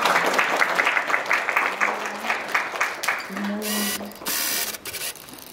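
A small audience clapping in quick, even strokes that die away after about three seconds, followed by a short voice sound and a brief rustle.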